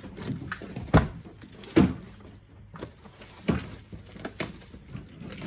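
Cardboard boxes being handled and set down: four dull thuds and knocks, the loudest about a second in and just before two seconds in.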